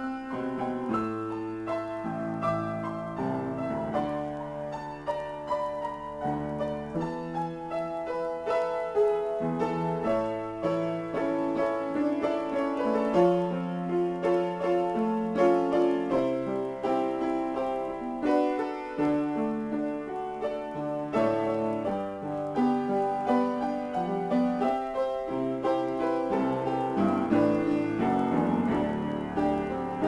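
Solo piano improvisation: a steady flow of notes and chords over sustained bass notes.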